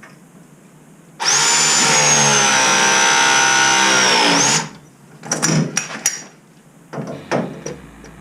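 Battery-powered press tool running one press cycle on a Viega MegaPress gas fitting: a loud motor whine that starts about a second in, sags slightly in pitch as it crimps, and stops abruptly after about three and a half seconds. A few clicks and knocks of the tool and jaws being handled follow.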